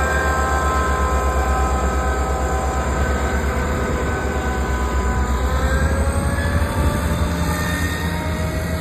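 ScotRail Class 158 diesel multiple unit running along the platform: a loud, fast-pulsing low engine throb with several whining tones that slowly fall in pitch.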